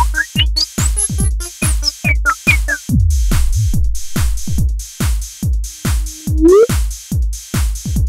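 Roland XPS-30 synthesizer playing an electronic dance groove: a drum-machine kick about twice a second, with rising synth sweeps near the start and again about six seconds in.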